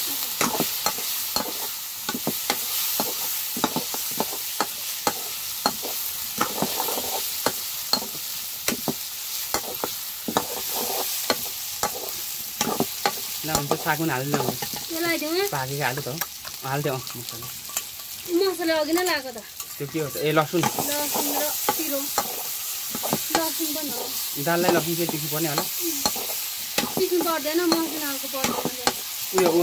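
Food sizzling as it fries in a pan while a spoon or spatula stirs it, with frequent knocks and scrapes against the pan. From about halfway in, a wavering pitched sound comes and goes over the frying.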